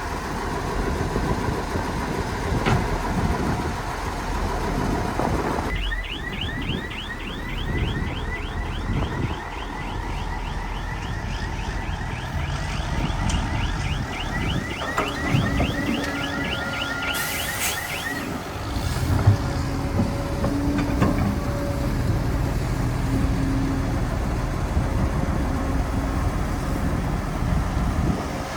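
Heavy diesel machinery running: excavator and dump truck engines working. From about six seconds in, a fast repeating high-pitched chirping runs for about twelve seconds over the engine noise.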